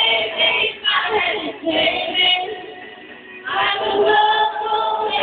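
A small group singing together, women's voices to the fore, with a brief quieter lull about halfway through.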